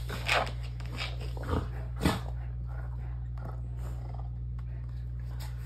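Belgian Malinois dogs playing rough, with three short, sharp dog sounds in the first two seconds. The loudest comes about two seconds in.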